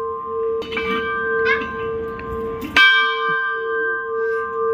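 Large hanging metal temple bell rung by pulling its rope, its clang humming on in several steady tones. It is struck hard again a little under three seconds in, the loudest moment, and rings on.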